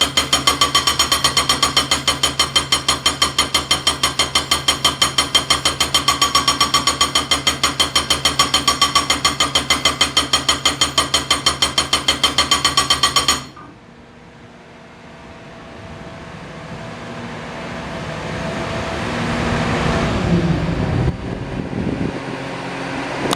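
AY A22 hydraulic breaker hammering with rapid, evenly spaced metallic blows, several a second, which stop abruptly about 13 seconds in. A steadier machine noise then slowly builds up.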